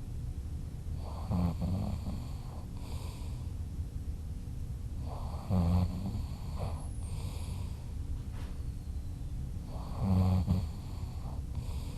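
A sleeping person snoring: three loud snores about four seconds apart, with softer breathing between them.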